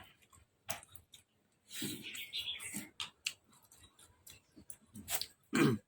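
Eating sounds of someone with a bowl of beef noodle soup: scattered clicks and taps with wet chewing and slurping, busiest about two seconds in, and a short loud burst near the end.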